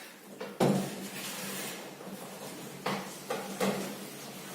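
Handling noises as a reusable vacuum dust bag is brought out and shown: a sharp knock about half a second in, a stretch of rustling, then a few lighter knocks.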